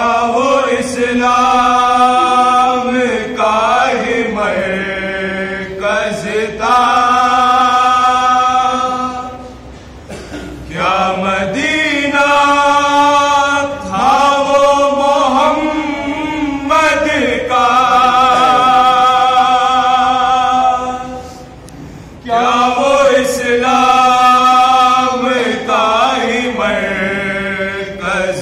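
A man singing a Shia marsiya (mourning lament) unaccompanied, in long phrases of held, wavering notes. He pauses briefly about ten seconds in and again a little after twenty seconds.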